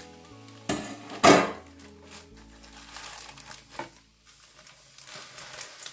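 Soft background music with two brief, loud handling noises about a second in, the second the louder, then a few faint clicks.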